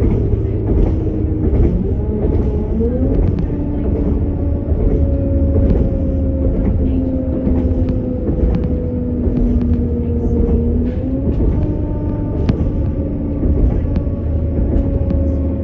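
Steady low rumble of a CAF Class 195 diesel multiple unit under way, heard from inside. Its underfloor diesel and ZF six-speed gearbox give a whine that steps up in pitch about two and a half seconds in and again near eleven seconds, sagging slowly in between. Light clicks come from the track.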